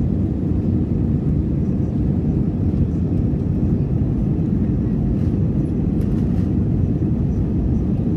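Steady low drone of an Airbus A320-family airliner's jet engines and airflow, heard inside the passenger cabin during the climb after takeoff.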